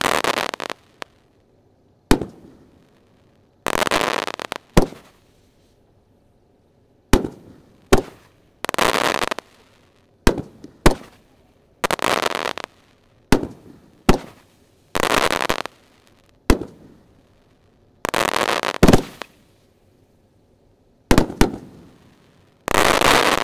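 Mammoth Crackle 2.25-inch firework cake firing its finale: a sharp boom every second or two, alternating with about a second of dense crackling as the crackle stars burst.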